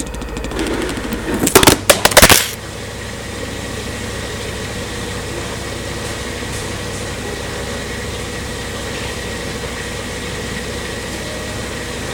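LG washing machine running a rinse-and-spin cycle: a few loud knocks about two seconds in, then a steady hum with a thin high whine.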